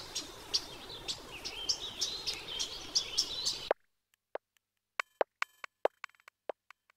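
Preview of a recorded nature ambience loop: birds chirping over a steady outdoor hiss, cutting off abruptly about three and a half seconds in. It is followed by a loop of sparse, irregular wooden clicks.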